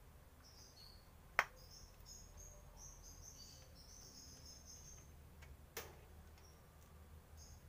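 Two sharp clicks about four seconds apart, the first the louder, from brake hardware being fitted by hand on an Isuzu Panther's rear drum-brake backing plate, over faint steady high chirping.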